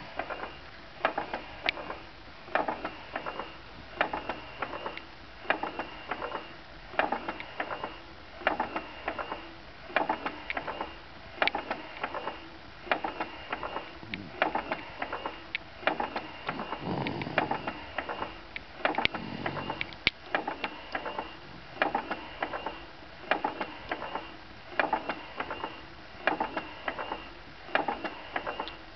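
Motorized baby swing clicking rhythmically, a cluster of mechanical ticks about every second and a half as it swings. A little over halfway through, a baby's snoring comes through twice.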